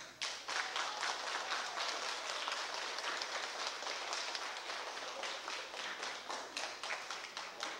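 Audience applauding: many hands clapping in a dense, even patter that breaks out suddenly.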